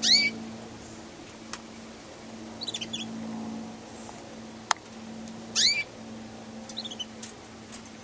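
Young Russian canaries calling: two loud rising chirps, one at the start and one about five and a half seconds in, with short runs of softer twittering between them. A single sharp click near the middle, over a steady low hum.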